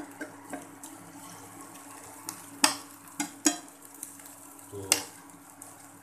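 Spatula stirring and spreading mushrooms in a nonstick frying pan, with a light sizzle of frying and a few sharp knocks of the spatula against the pan, about two and a half, three and a half and five seconds in.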